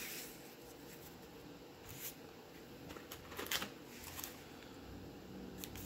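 Quiet handling of trading cards and a sealed foil-wrapped card pack: a few soft rustles and taps as the cards are set down and the next pack is picked up.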